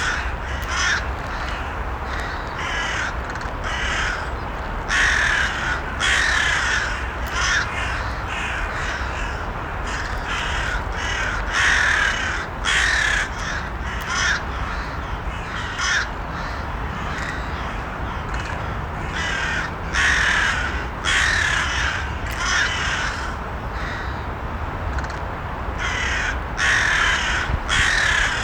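Crows cawing over and over, harsh calls in quick runs of several caws that come every second or two, over a steady low background noise.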